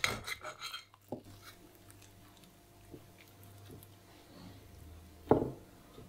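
Knife and fork clicking and scraping against a ceramic plate while cutting through a soft tortilla wrap, with a cluster of clicks at the start, a few scattered ticks after, and one louder knock about five seconds in. A faint low hum runs underneath.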